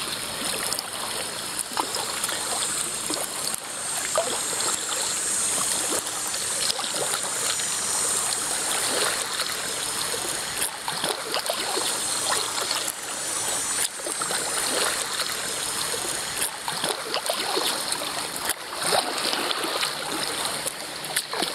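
Paddling a whitewater kayak: water splashing and trickling off the paddle blades and along the hull as it moves through calm water.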